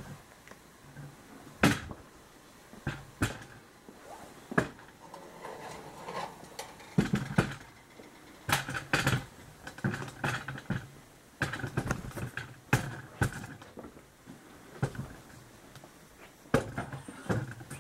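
Irregular knocks, clicks and rustling from a camera and a cooking pot being handled while someone walks, with footsteps.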